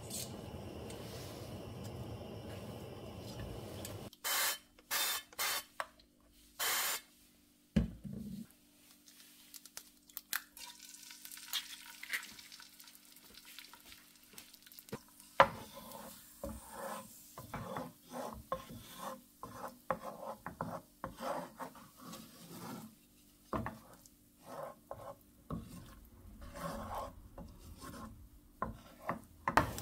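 Cooking in a non-stick frying pan: after a steady hiss and a few short scraping bursts, a wooden spatula scrapes and stirs a frying egg around the pan in many quick, irregular strokes through the second half.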